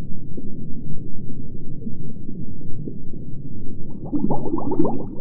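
Deep underwater rumble used as sound design for an animated undersea film, joined about four seconds in by a busy burst of bubbling.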